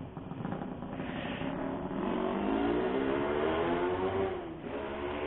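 Suzuki GSX-R150's single-cylinder engine accelerating: its pitch climbs steadily for a couple of seconds, then drops suddenly near the end at a gear change and runs on at a lower pitch.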